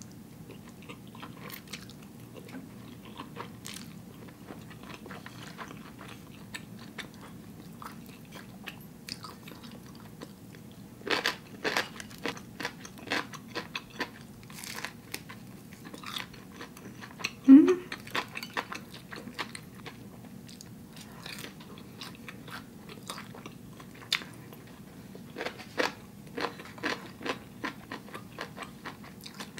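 Close-miked eating sounds: chewing and biting spicy instant noodles and a crunchy fried seaweed rice roll, as many short, irregular clicks and crunches. About halfway through there is a brief rising hummed sound from the eater.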